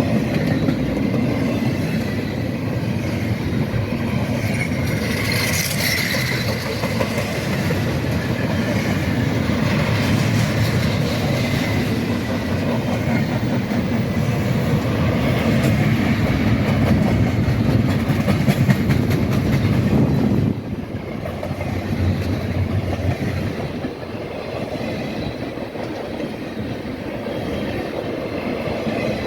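Freight train cars rolling past with a steady clickety-clack of wheels over the rail joints. The sound drops suddenly about twenty seconds in and carries on quieter.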